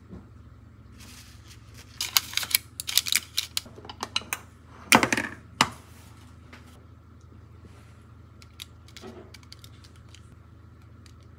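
A burst of paper crinkling and sharp clicks as a paper food liner is pressed into a plastic lunchbox. A few faint taps follow near the end as a metal spoon scoops sweet corn into it.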